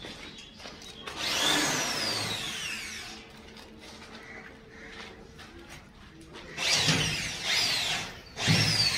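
Power drill running in three bursts, the first about a second in and two close together near the end, each with a high whine that falls away in pitch as it slows.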